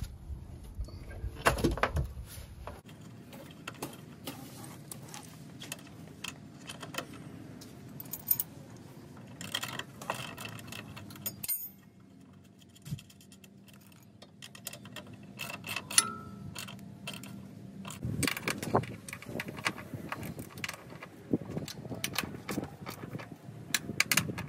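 Metal clinking and scraping of hand tools and bolts against steel suspension parts as a coilover shock's lower mount is lined up and bolted, in irregular clusters of sharp clicks and clanks.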